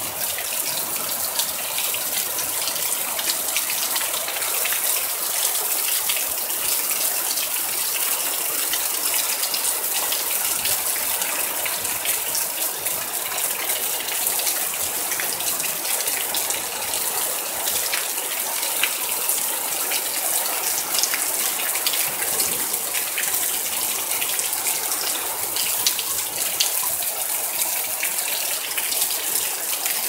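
Heavy thunderstorm rain pouring down in a steady, dense hiss, with many small drop splashes close by.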